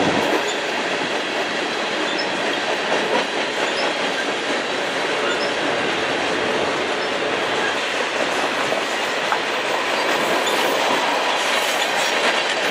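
The rear cars of a mixed freight train (tank cars, an autorack and flatcars) rolling past on steel rails: a steady, unbroken wheel-and-rail noise.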